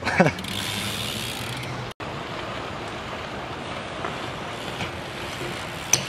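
BMX rear hub ratcheting steadily as the rear wheel or cranks are turned by hand, its pawls making a fast clicking rush. About two seconds in it cuts out for an instant, and a steadier, quieter rushing noise follows.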